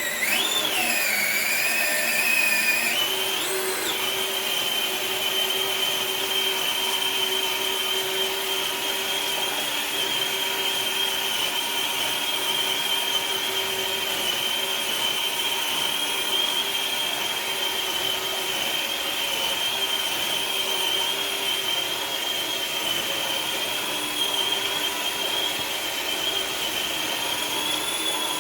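Traxxas TRX-4 Bronco RC crawler's electric motor and drivetrain whining under load as it drags a weighted sled. The pitch wavers in the first few seconds, then holds steady.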